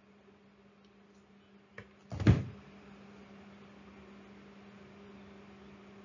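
A single loud thump a little over two seconds in, just after a faint click, over a steady low electrical hum.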